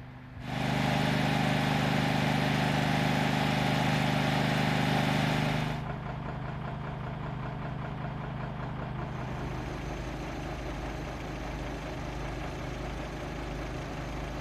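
A vehicle's engine idling steadily. It is louder for the first five seconds, then quieter but unbroken.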